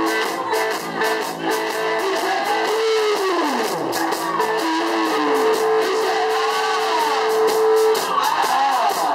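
Live band music: an electric guitar lead with pitch bends, a steep downward slide about three seconds in and a long held note in the middle, over steady drums.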